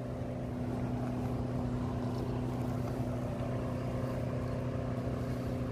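Distant pump running steadily across the river with a low, even hum; by the sound of it, a flooded house being pumped out.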